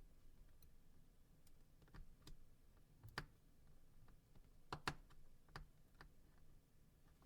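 Faint, sparse clicks and taps from the phone's small parts being handled and pressed into place during assembly. The loudest comes about three seconds in, followed by a quick double click a little later.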